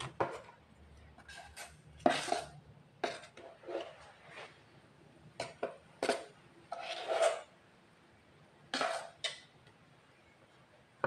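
A metal spoon scraping and knocking against a blender jar and a stainless steel bowl as blended fish paste is scooped out. It comes as irregular clinks and short scrapes, with longer scrapes about two seconds in, around seven seconds and near nine seconds.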